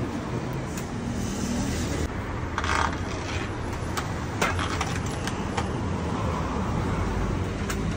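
Sharp clicks and a short scrape from an LED batten light fixture being pressed into place by hand along its length. The clicks come in a quick cluster past the middle, with one more near the end, over a steady low street hum.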